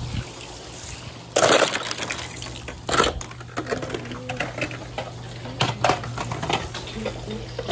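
Several sharp knocks and clatters, the loudest about one and a half seconds in and others around three and nearly six seconds, over a steady low hum.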